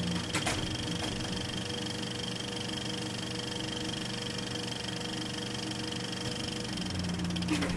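A steady mechanical whirr with a fast, fine rattle and a few held tones, with a click about half a second in and another near the end.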